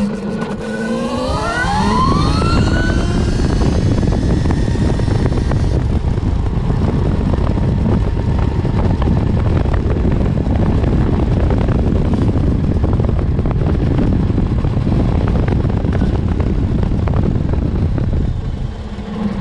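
Electric drive of a QS138-motored KTM 790 Duke conversion whining and rising in pitch as the bike accelerates over the first couple of seconds. After that, loud wind rushing over the microphone and road noise cover it while the bike rides on, easing off just before the end.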